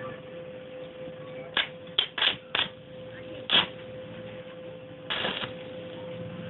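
Stick welder with a steady hum as the electrode is tapped against the steel sprocket to strike the arc: about six short, sharp crackling bursts, the last one lasting nearly half a second.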